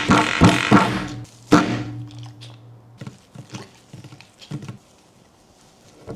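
Music with sharp percussive hits ends on a last hit about a second and a half in, followed by a few scattered soft taps and thuds.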